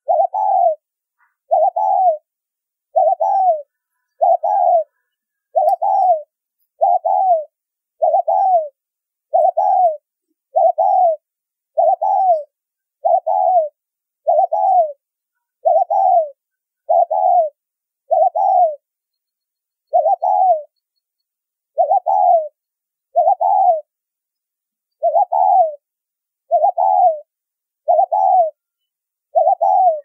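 Spotted dove cooing: a short, slightly falling coo repeated about once a second, with a couple of brief pauses. This is the fast, driving 'thúc' calling style that Vietnamese dove keepers prize.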